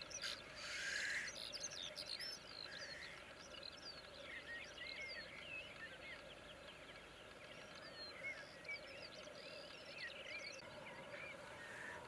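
Black grouse lekking: the males' steady low bubbling song runs throughout, with one loud hissing call about a second long near the start. Many short, rising and falling chirps of small songbirds sound above it.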